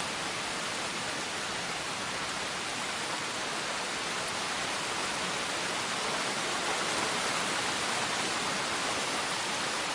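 Heavy rain falling steadily: an even hiss with no single drops or other sounds standing out.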